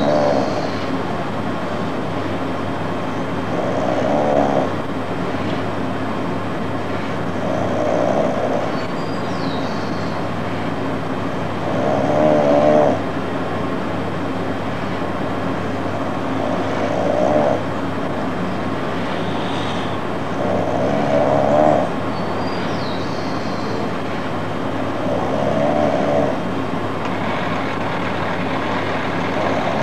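A person snoring, one snore about every four seconds, over the steady hiss of rain.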